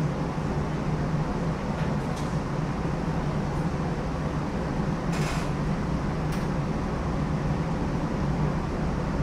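New Orleans streetcar running along its track: a steady rumble and low hum of the car's motors and wheels, with a few short clicks and one brief hiss about five seconds in.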